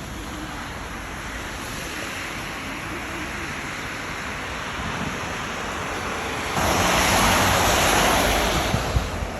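Snowstorm wind blowing over the microphone, building steadily and surging into a strong gust about two-thirds of the way through.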